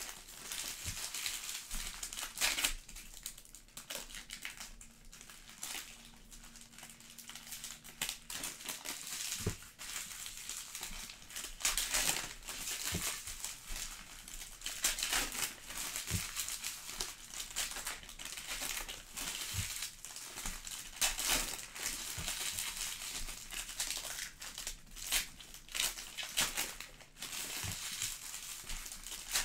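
Foil wrappers of Panini Prizm soccer card packs being torn open and crumpled in irregular crinkling bursts, with a quieter stretch a few seconds in.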